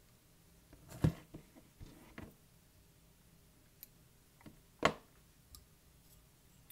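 A few light clicks and knocks from fly-tying tools being handled at the bench, the two sharpest about a second in and just before five seconds, over quiet room tone.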